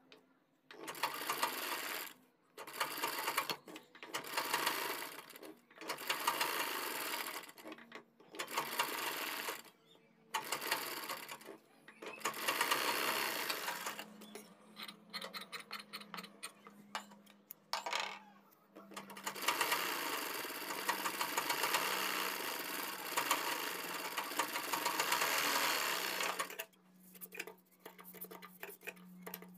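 Sewing machine stitching through buckram and cloth in short runs of one to two seconds with brief pauses. About halfway it breaks into a stretch of quick separate ticks, then runs steadily for about seven seconds before ticking again near the end.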